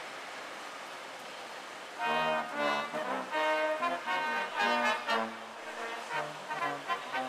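A small brass band of tuba, tenor horn and cornet strikes up about two seconds in, playing a tune in short chords over steady background noise.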